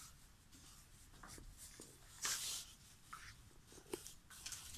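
Faint scratchy rustling and a few light clicks, with one louder rustle about two seconds in.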